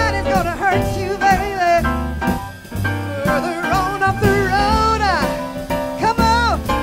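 Live blues with a female singer backed by piano, upright bass and drums. Her voice bends and slides between notes, with a long falling run about five seconds in.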